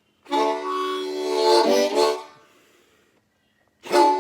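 Blues harmonica playing chords: a held chord with a quick change of notes near its end, then a pause, and a second phrase starting near the end.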